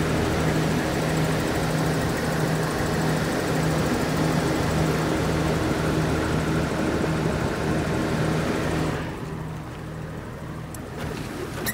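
Toyota Coaster's 1HZ inline-six diesel engine idling steadily, heard from under the bus near the exhaust. It becomes quieter about nine seconds in, and a couple of faint clicks follow near the end.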